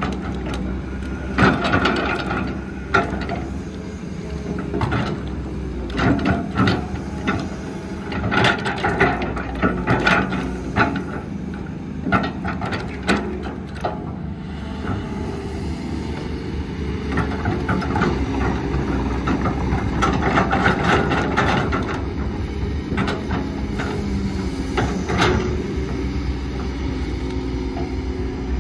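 An excavator loading a dump truck: a steady diesel engine drone, with many sharp clanks and knocks through the first half, then a steadier, busier rumble of machinery.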